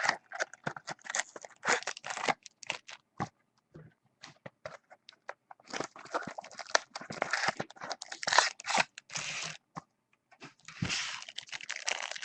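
Trading card pack wrapper crinkling and tearing as it is opened, with many short crackles and small clicks from the cards being handled.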